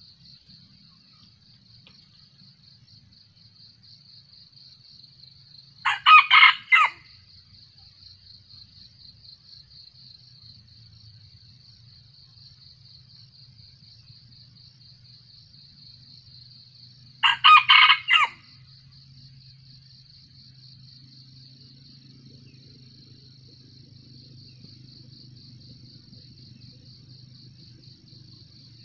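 Red junglefowl rooster crowing twice, each crow short, about a second long and some eleven seconds apart, over the steady high, pulsing chirr of insects.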